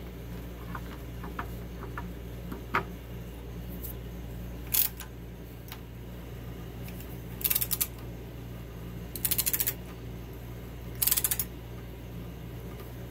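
T-handle tap wrench being turned by hand to cut threads in a steel part, giving four short bursts of quick metallic clicks, with a few fainter single clicks before them. A steady low hum runs underneath.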